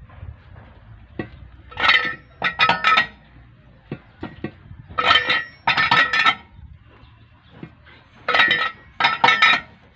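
Steel cross lug wrench with a pipe extension clanking against a wheel's lug nuts as they are checked for tightness: three pairs of ringing metal clanks, about three seconds apart.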